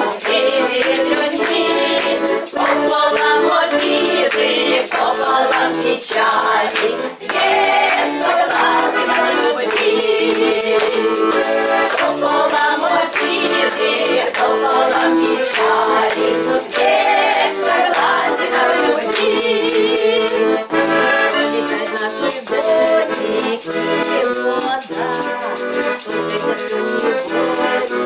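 Women's folk vocal ensemble singing a folk song together, with several voices in harmony.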